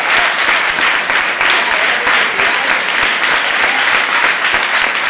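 Steady, loud applause at a flamenco curtain call, the audience and the performers on stage clapping together.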